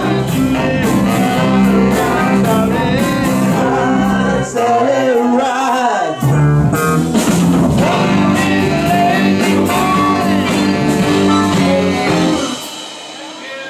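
Live blues-rock band playing: a woman singing over electric guitars, bass guitar and saxophone. The bass drops out briefly around five seconds in, and the song ends about twelve seconds in.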